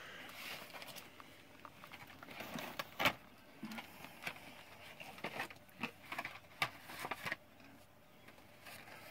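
Packaged die-cast toy cars being handled: a run of irregular clicks, taps and light rustling, with the sharpest tap about three seconds in.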